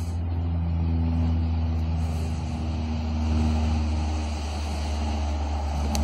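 A steady, low engine drone like a distant airplane passing over, heard through heavily noise-reduced field audio. The uploader takes it for Bigfoot infrasound mimicking a plane.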